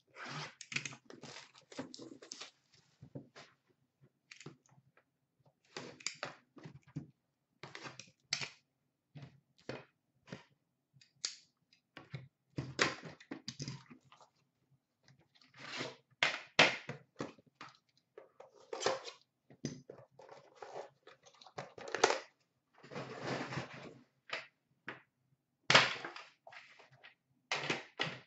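Hands handling and opening a boxed set of hockey cards: irregular rustling and scraping of cardboard packaging, with clicks, taps and a few sharper knocks as the box is handled and set down.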